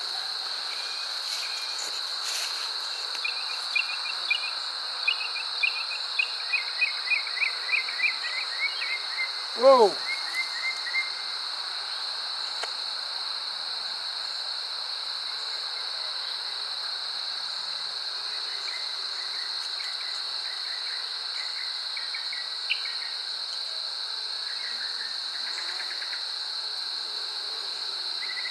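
A steady, high insect trill, from crickets or similar insects, runs without a break. Series of short high chirps come in over the first ten seconds or so and again near the end, and a man's brief exclamation, "Whoa," is heard about ten seconds in.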